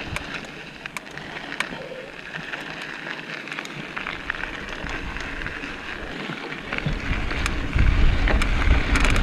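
Trek mountain bike rolling over a sandy, rocky trail: tyres crackling on gravel, with many small rattling clicks from the bike. Wind on the microphone comes in as a strong low rumble near the end as speed picks up.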